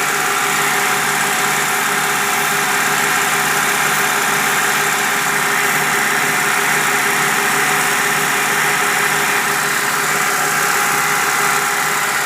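2000 Ford Ranger engine idling steadily at a high idle, which the owner suspects comes from a vacuum leak or a faulty idle air control valve.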